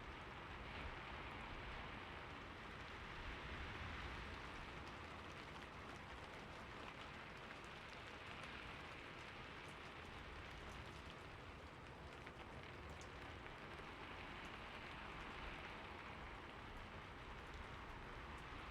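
Soft, steady rain falling in a city: an even hiss of rain with a faint low rumble beneath it.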